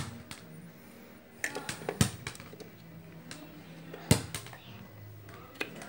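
Sharp plastic clicks and taps from handling an opened electronic device's plastic case and a multimeter test probe: a small cluster of taps about one and a half seconds in, and two louder knocks about two and four seconds in.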